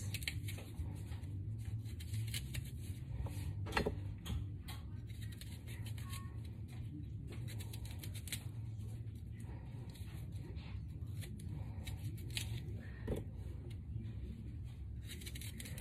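Kitchen knife cutting an apple into small cubes by hand, a scattered series of short crisp clicks as the blade cuts through the fruit.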